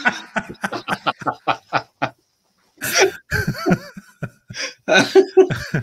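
Two men laughing: a quick run of short "ha" pulses for about two seconds, a brief pause, then a second burst of laughter.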